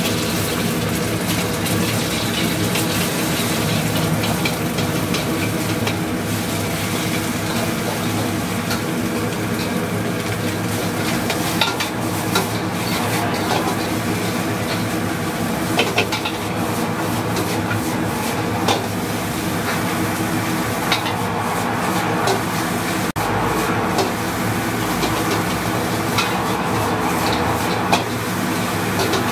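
Food stir-frying in a wok: steady sizzling, with a metal spatula scraping and clanking against the pan every few seconds, over a steady hum.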